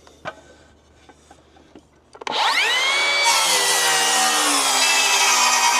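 A few light clicks, then about two seconds in a power saw starts, its motor whining up to speed, and a second later the blade cuts into a wooden board, a loud hissing rasp with the motor's pitch sagging slightly under load.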